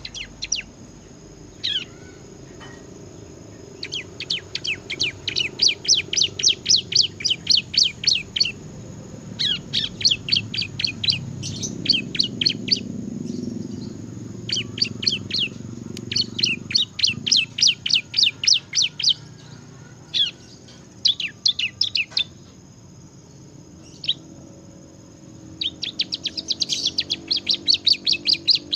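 Bar-winged prinia (ciblek) singing in long runs of rapid repeated high chirps, about five notes a second, each run lasting a few seconds with short pauses between.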